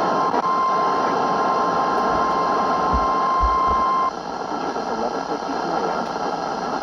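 NOAA Weather Radio's steady single-pitch alarm tone, near 1 kHz, sounding over radio receiver hiss. It is the 1050 Hz warning alert tone that signals an emergency broadcast. The tone cuts off sharply about four seconds in, leaving only the hiss.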